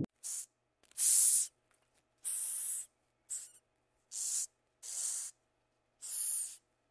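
Madagascar hissing cockroaches hissing: about seven short, sharp hisses, each about half a second long with short silences between, the loudest about a second in. The cockroach makes the hiss by forcing air out through the breathing holes along its body.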